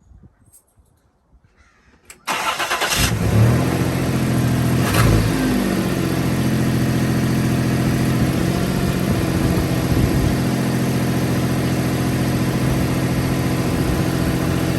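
1995 Toyota 4Runner's 3.0 V6 starting about two seconds in, after a few faint clicks, with a couple of brief revs. It then settles into a steady idle, running smoothly at a slightly high idle now that the misfire is cured, with an exhaust leak.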